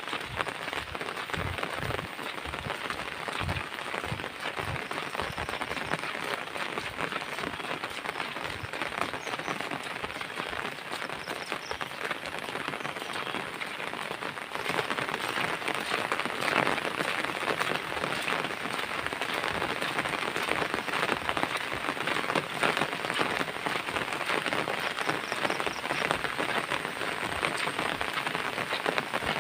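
Steady rain falling on surfaces, a dense hiss of countless small drops that grows louder about halfway through. A few soft low thumps sound in the first few seconds.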